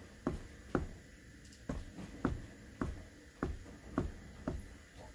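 Light, sharp taps of dots being dabbed onto paper, about two a second.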